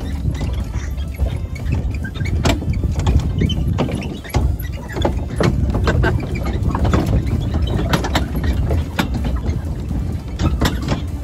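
Farm vehicle driving across a bumpy, sloping hillside paddock: a steady low rumble with frequent sharp knocks and rattles throughout.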